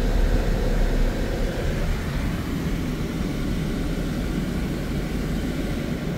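Steady road-traffic noise of cars driving past on a multi-lane road, with a low rumble that is strongest in the first couple of seconds.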